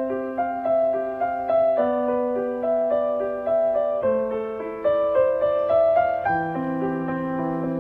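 Background piano music: a gentle melody over low notes held about two seconds each.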